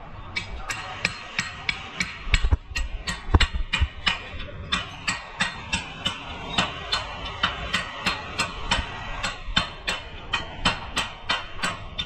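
Hammer striking metal in steady, evenly spaced blows, about two to three a second, during work on the suspension. A few heavier, deeper thuds come around two to four seconds in.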